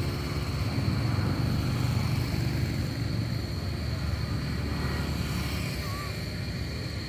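Steady low outdoor rumble with a thin, steady high-pitched whine over it, and one faint short chirp about six seconds in.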